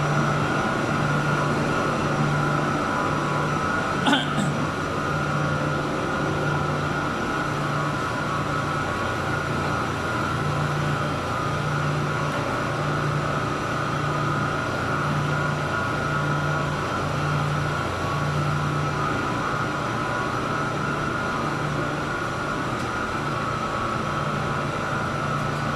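75 HP chilled-water pump and its electric motor running steadily: a constant machine hum with a low tone that swells and fades about once a second, and a single short click about four seconds in.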